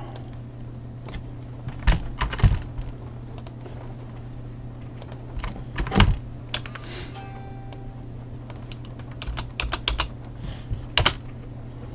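Computer keyboard keys and mouse clicks: scattered single clicks, then a quick run of several key presses near the end, over a steady low hum.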